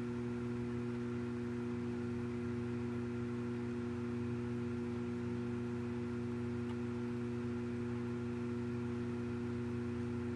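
Steady electrical hum made of a few fixed low tones, unchanging throughout, over faint hiss.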